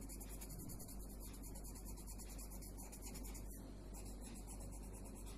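Dark green colouring pen rubbing quickly back and forth on sketchbook paper as a drawing is coloured in, a fast steady scratching over a low hum.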